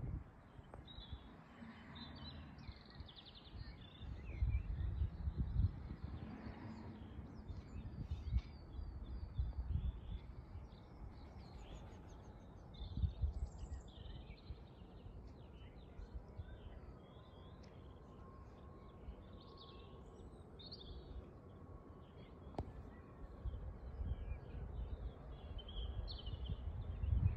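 Small birds chirping and singing in many short calls, over an uneven low rumble that swells in gusts.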